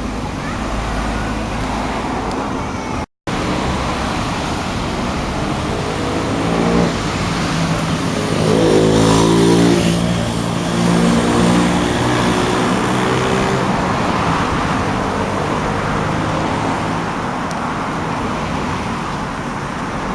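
A motor vehicle drives past over steady background traffic noise; its engine pitch rises as it approaches and falls away after passing, a few seconds past the middle.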